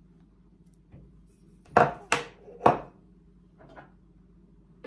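Sharp clacks of kitchenware: a spatula and a ceramic ramekin knocked against a bowl and set down on the countertop while butter is scraped in. Three loud clacks come close together about two seconds in, with fainter taps before and after.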